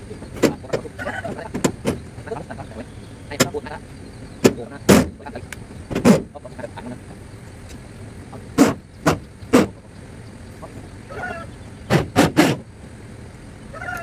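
Irregular sharp knocks and bangs on corrugated zinc roofing sheets as they are worked on, about a dozen hits spread through, several coming in quick groups of two or three.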